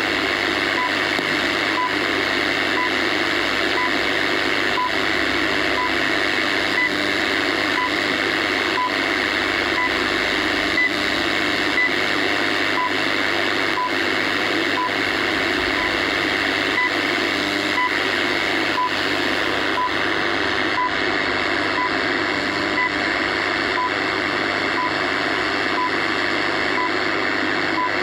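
Shortwave radio tuned to a time-signal station on 15000 kHz: a short tick once every second through a steady hiss of static. The uploader takes the station for the one in Colorado, USA.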